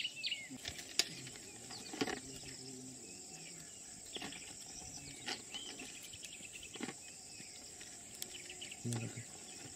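Outdoor ambience: a steady high-pitched insect drone, with scattered bird chirps and a few sharp clicks.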